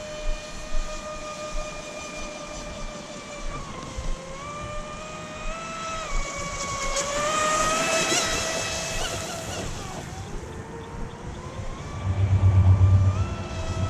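Electric RC speedboat's brushless motor and propeller whining as it runs on the water, the pitch stepping up and down with the throttle. It is loudest about eight seconds in, with a rushing hiss, and a low rumble sets in near the end.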